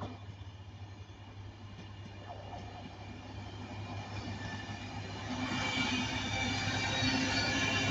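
Train approaching and passing, its running growing steadily louder, with a steady hum and a high-pitched whine coming in about five seconds in.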